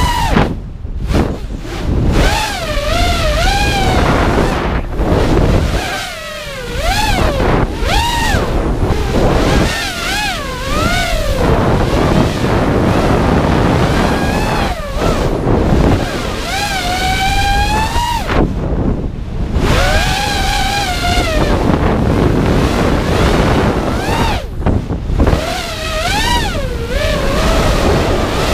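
A freestyle FPV quadcopter's EMAX RS2205 2300KV brushless motors and propellers whine, their pitch swooping up and down as the throttle is punched and cut. The whine sits over a steady rush of wind on the onboard camera's microphone.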